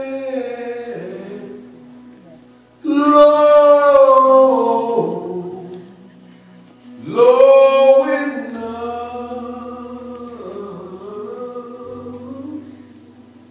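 A man singing solo into a microphone, slow phrases of long held notes; new phrases begin about three and seven seconds in, each fading away.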